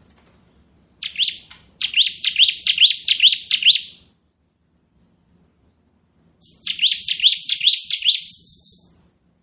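Bar-winged prinia (ciblek) singing its rapid drilling 'ngebren' song: two trilled phrases of repeated upslurred chirps, about four a second. The second phrase starts about six and a half seconds in.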